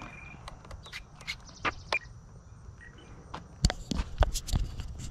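Footsteps on a pavement, scattered clicks at first and heavier, closer-spaced steps from about halfway in, over a faint steady high insect drone.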